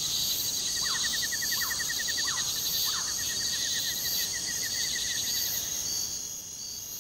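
Crickets and other insects chirping together: steady high trills with one insect in a fast pulsing chirp that stops about six seconds in, giving way to a slower, evenly repeated chirp. Four short, lower chirps sound in the first three seconds.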